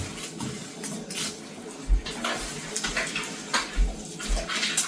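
Kitchen knife cutting whole garlic heads in half on a cutting board: a run of irregular knocks and crackles, some with a dull thud as the blade hits the board.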